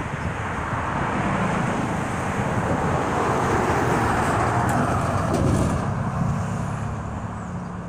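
Road traffic passing close by. Cars and a pickup truck towing a tandem-axle enclosed trailer drive past, with tyre and engine noise swelling about halfway through and fading near the end.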